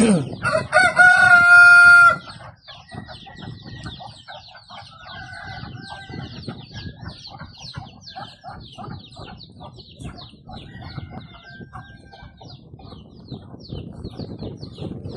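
A rooster crows once, loud, for about two seconds near the start. After that, chickens cluck softly over a constant patter of rapid high-pitched peeps.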